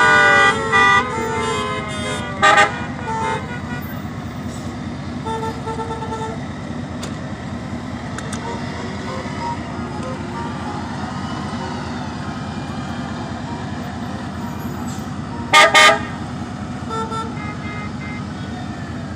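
Vehicle horns honking in a slow-moving convoy over a steady low engine and road rumble. Several horns sound together with a siren falling in pitch at the start, short toots follow now and then, and two loud horn blasts come about three quarters of the way through.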